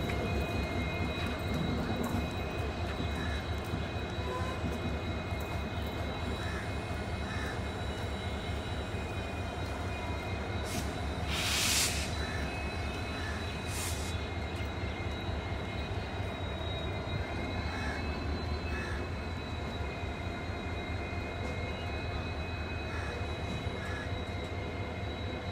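WDP-4D diesel locomotive's 16-cylinder two-stroke EMD engine running steadily, a low rumble with a steady high whine over it. A short, sharp hiss of air about halfway through.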